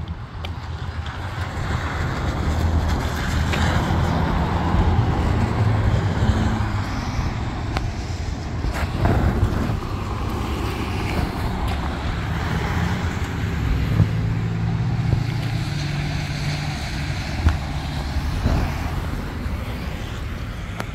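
Road traffic on a wet street: a vehicle engine's steady low hum with road noise, swelling over the first couple of seconds and then holding.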